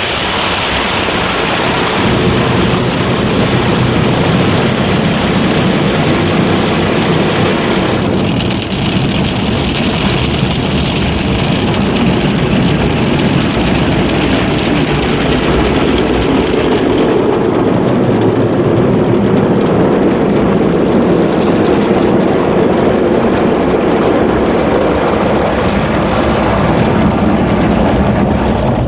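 Motor City Wash Works conveyor car wash working over the car, heard from inside the cabin: a loud, steady rushing of water spray and washing equipment against the body and glass. The sound dulls a little about eight seconds in, then carries on steadily.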